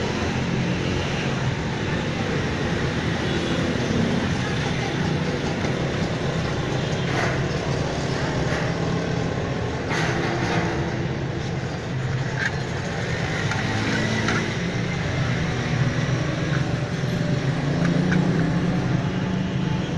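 Steady low engine-like hum with street traffic noise, and a few light clicks.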